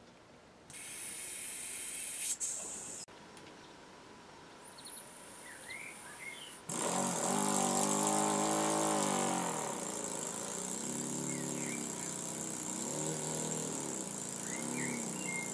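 Quarter-scale brass wig-wag model engine running fast on compressed air, a buzzing chatter whose pitch rises and falls as its speed changes; it starts about two-thirds of the way in. Before it, air hisses through the supply for a couple of seconds and cuts off sharply.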